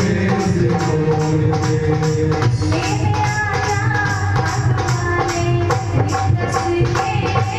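Devotional jagran music played by a live band: drums and tambourine jingles keep a steady, fast beat under sustained melodic instrument tones.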